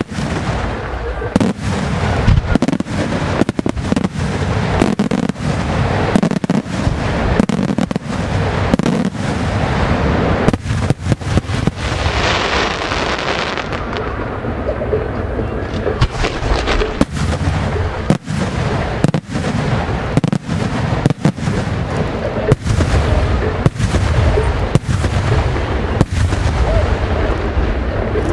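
Fireworks display firing continuously: a dense series of sharp bangs from bursting shells, several a second at times, with continuous rushing noise between them.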